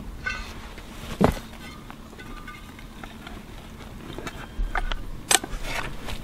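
Plastic sheeting rustling over a metal cooking pot and the pot's metal lid being pressed down, with a sharp knock about a second in and a cluster of clicks and knocks near the end.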